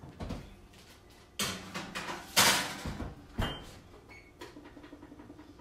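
Oven rack and door handled: a few clunks, then the oven door shut with a bang about two and a half seconds in. Two short electronic beeps follow from the range's control panel as the cooking timer is set.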